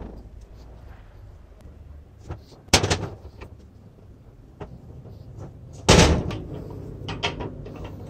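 Sharp metal knocks and clatter as a power-tool motor armature is set down and shifted in a steel bench vise. The two loudest knocks come about three seconds in and again about six seconds in, each followed by brief rattling.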